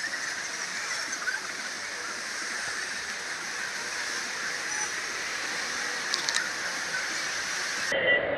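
Steady hissing street ambience on a walking camera's microphone, with a few faint clicks about six seconds in. Near the end it cuts abruptly to a duller, muffled recording.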